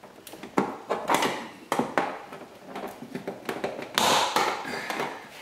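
Sharp clicks and taps of a door-panel pry tool working under the plastic door panel of a 2001 Corvette C5 to release its retaining pins, with a louder, longer noise about four seconds in.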